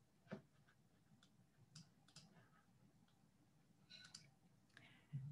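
Near silence: faint room tone with a few scattered soft clicks, the clearest just after the start.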